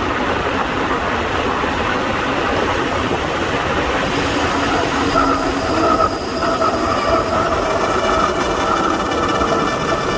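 Wind rushing over the microphone as a CUBE Attain GTC Pro road bike rides at speed; from about four seconds in, its disc brakes squeal with several steady tones over the wind.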